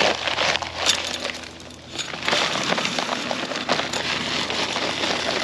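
Dry concrete mix pouring and rattling into a post hole: a dense gritty crackle, easing off briefly about a second and a half in, then pouring again.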